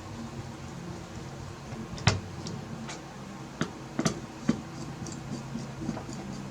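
A few sharp clicks and knocks of small hard parts being handled, the loudest about two seconds in and three more around the fourth second, over a steady low hum.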